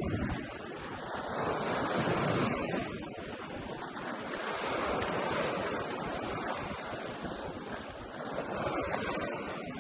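Ocean surf breaking and washing up the beach, a steady rush that swells and eases about every three seconds.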